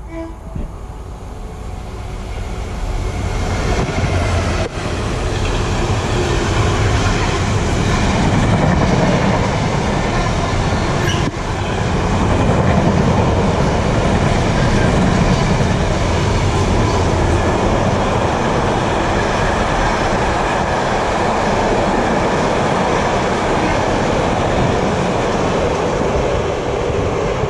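A container freight train passing close by. The noise builds over the first few seconds as the locomotive approaches, then holds as a steady rumble of the container wagons rolling past.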